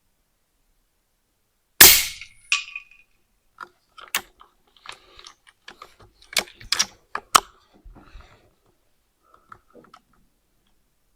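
A single shot from an Altaros M24 air rifle firing a 40-grain slug: one sharp, loud report with a short tail, then a fainter crack a moment later. After that come several seconds of small clicks and knocks from the rifle being handled.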